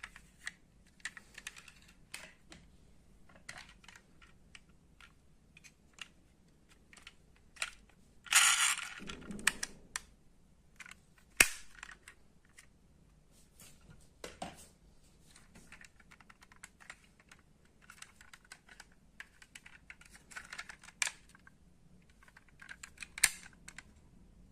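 Die-cast model cars being handled: irregular light clicks and taps of small metal and plastic parts. A louder scraping rustle comes about eight seconds in, and a single sharp click a few seconds later.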